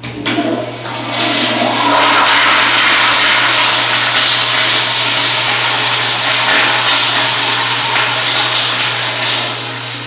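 Flushometer valve flushing a Kohler toilet bowl with a wall-back spud, tripped by foot. A sudden surge of water at the start grows within about a second into a loud, steady rush that tapers off near the end.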